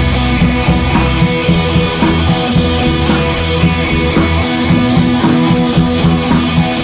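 Rock background music with electric guitar and a drum kit playing a steady beat.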